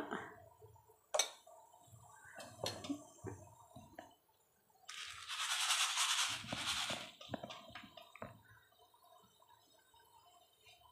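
Light kitchen handling noises at a frying pan of oil on a stove: a sharp clack about a second in and a few small knocks, then about two seconds of scratchy rasping in the middle, followed by a couple of light taps.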